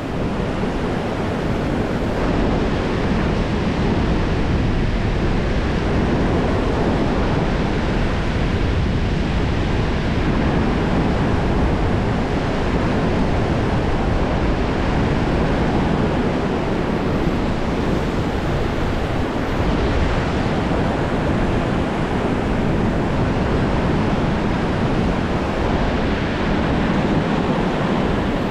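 Steady, loud rush of wind buffeting the microphone over water noise, typical of a boat running along the water.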